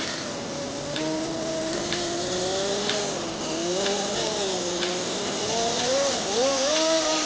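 Small two-stroke Kyosho GX-15 nitro glow engine of an RC snowcat running, its pitch rising and falling as the throttle is worked. A faint tick comes about once a second.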